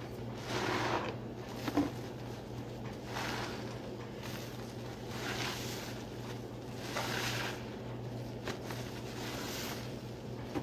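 A soapy sponge squeezed by hand, giving about five wet squishing squeezes a couple of seconds apart, over a steady low hum.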